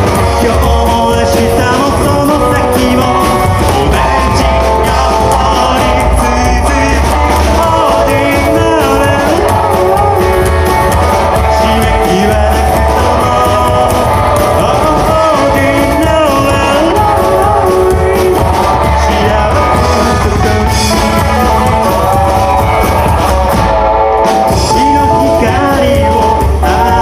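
A rockabilly band playing a song live, with guitar and singing over a steady bass.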